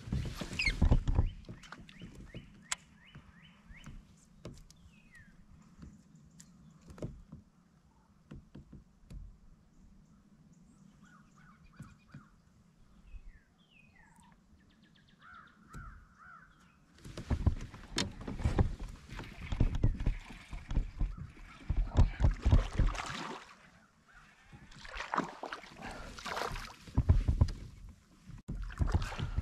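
Faint bird calls and a few light clicks over a quiet lake, then, from about halfway through, loud irregular bursts of handling noise and water in a fishing kayak as the angler works his gear and reaches for the landing net.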